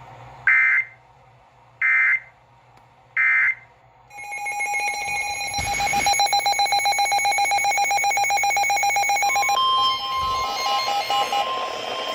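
Emergency Alert System data signals off the radio: three short, shrill digital bursts about a second apart, the end-of-message code closing the previous alert. About four seconds in, a loud pulsing alert tone starts, and near the end it gives way to a different steady tone.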